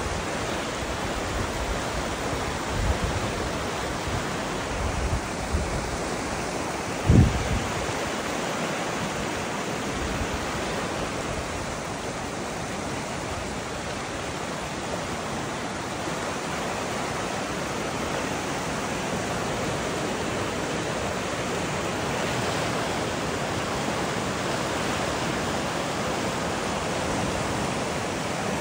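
Flooded stream, normally ankle deep and now several feet deep, rushing past in a steady roar of fast water. A few low thumps come in the first eight seconds, the loudest about seven seconds in.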